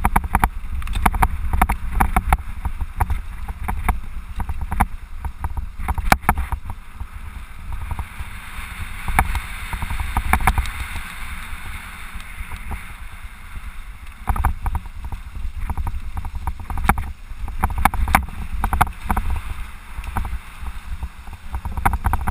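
Mountain bike rolling fast down a rough dirt trail: a steady rumble of wind on the microphone, with frequent rattling knocks as the bike and camera jolt over bumps.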